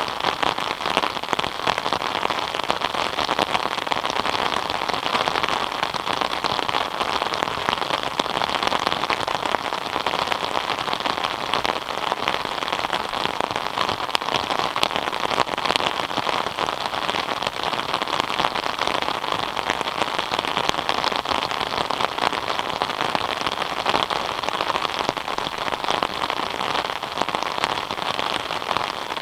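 Steady rain falling on a surface, a dense patter of many small drop impacts.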